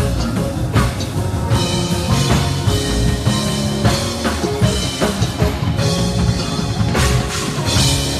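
Live band playing: drum kit hitting steadily over bass guitar and keyboard, with cymbals crashing near the end.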